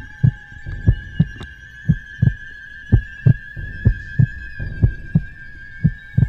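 Heartbeat sound effect: paired low thumps, about one double beat a second, over a steady high ringing tone.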